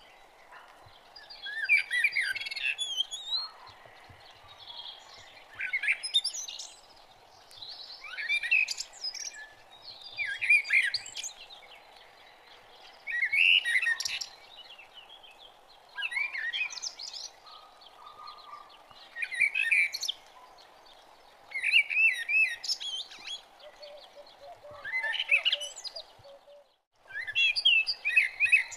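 A songbird singing short, warbling chirp phrases, one about every two to three seconds, over a faint steady background hiss.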